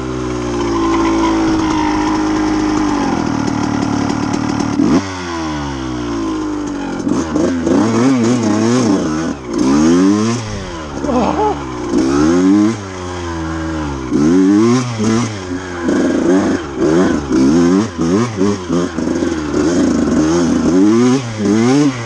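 KTM dirt bike engine running under way, at a fairly steady pitch for the first few seconds, then revving up and down over and over as the throttle is opened and closed.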